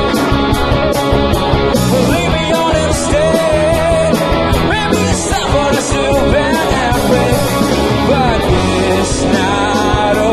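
Rock band playing live: electric guitars, bass and drums.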